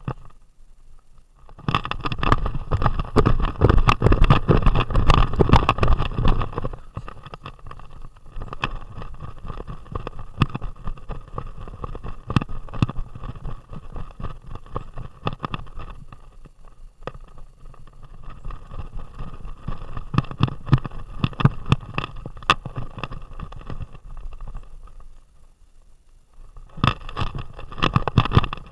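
A vest-mounted action camera rattling and knocking in its mount as the dog carrying it runs, a rapid jolting clatter with the footfalls. It is loudest for a few seconds early on, softer through the middle, fades briefly, then picks up again near the end.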